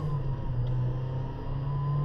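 1986 Toyota MR2's mid-mounted four-cylinder engine heard from inside the cabin during a gear change: the revs drop just after the start, hold low, then climb again near the end as the car pulls in the next gear.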